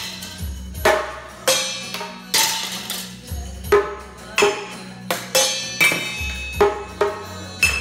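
Stainless-steel kitchen pots and a stacked idli steamer stand struck with drumsticks as a makeshift drum kit: irregular strikes, roughly two a second, each leaving a short metallic ring, over music playing along.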